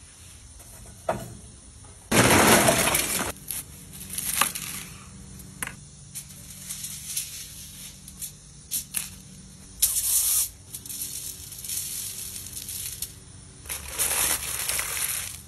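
Aluminium foil crinkling and rustling in repeated short bursts as a sheet is scrunched and folded into a packet, after a louder rush of noise about two seconds in.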